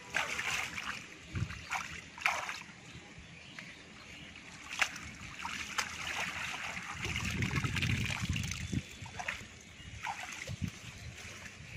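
Shallow water splashing and trickling as a woven bamboo fish trap is pulled out of the water and lifted, with scattered sharp knocks and scrapes of the bamboo. The handling gets louder and denser about seven to nine seconds in.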